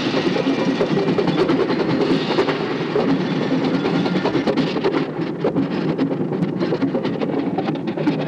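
High school marching band playing, its drum line of bass drums and snares beating a fast rhythm of sharp hits under the dense, muddy sound of the horns.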